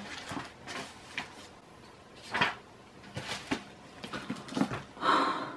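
Handling of a hardcover book: a series of short rustles and soft knocks as the last pages are turned and the book is closed, with a longer rustle about five seconds in.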